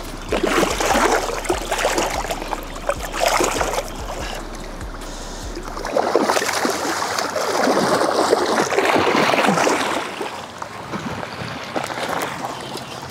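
Water splashing and sloshing in several surges at the water's edge, the longest in the middle, as a large hooked redtail catfish is worked into the shallows to be landed.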